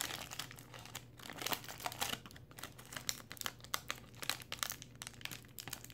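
Shiny foil wrapper of an O-Pee-Chee Platinum hockey card pack crinkling and tearing as it is peeled open by hand, in many quick, irregular crackles.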